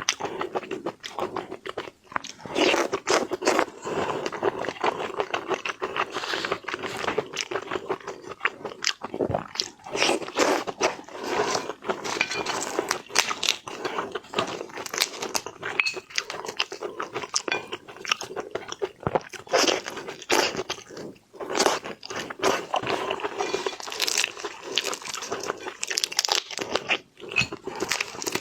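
Close-miked eating of seafood: irregular crunching bites and wet chewing, one crackling bite after another.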